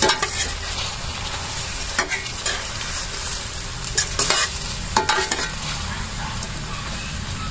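Chicken, macaroni and vegetables sizzling as they are sautéed in a stainless steel pan, stirred with a spoon that scrapes and clicks against the pan every second or two.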